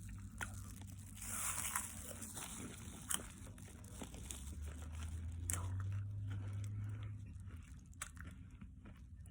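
Chewing and crunching a mouthful of Cheetos Flamin' Hot popcorn, scattered small crunches with a few crinkles.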